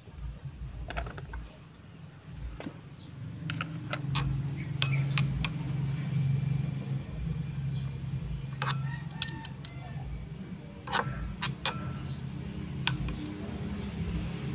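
Small metal utensil clicking and scraping against a miniature aluminium wok as vegetables are stir-fried, over a steady low hum. A few clicks are followed by brief ringing tones.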